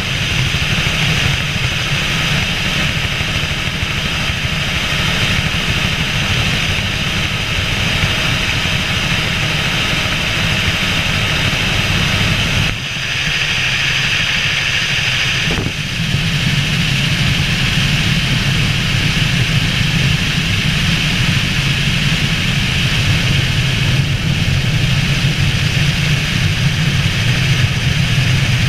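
Helicopter in flight: steady, loud engine and rotor noise, with the low rumble dipping briefly about 13 seconds in for some three seconds before it comes back.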